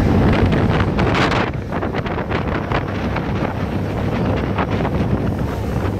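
Wind buffeting the microphone on the open deck of a moving ferry, over the rush of water from its wake. The loudest gust comes about a second in.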